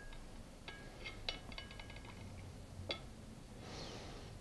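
Faint light clinks with a short glassy ring as fresh blueberries are dropped one by one into a glass bottle of vinegar, several over a couple of seconds, the loudest near three seconds in. A soft rustle of cheesecloth follows near the end.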